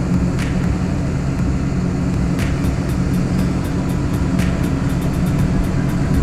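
Tracked excavator's engine running steadily, heard from inside the cab, with a sharp tick about every two seconds.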